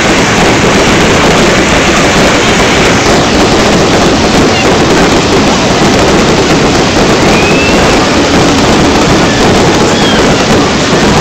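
Fireworks display crackling in a loud, continuous wash of sound, with no single bang standing out above the rest.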